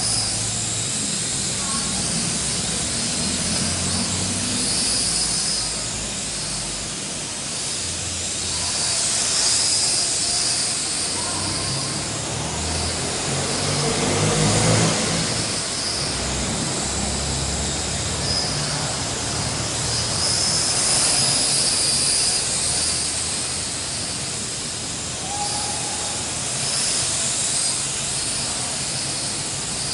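Small toy quadcopter's motors and propellers whining in flight, a steady high buzz whose pitch wavers up and down as the throttle changes, swelling louder a few times.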